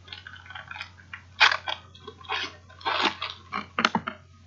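Foil wrapper of a Panini Classics football card pack crinkling and tearing open in a run of irregular crackles, as the stack of cards is pulled out of it.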